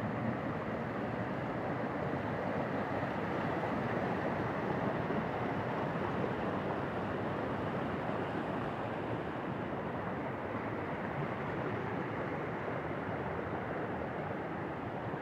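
Creek running high after heavy rain, its water rushing over rocks and boulders in a steady, unbroken rush.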